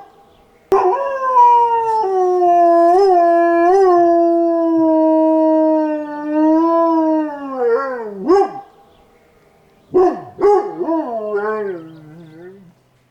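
Chihuahua howling: one long, high, steady howl lasting about seven seconds, with two small wavers in pitch, that sags and falls at its end. It is followed by a few short sharp yips and then several shorter wavering howls that fall away near the end.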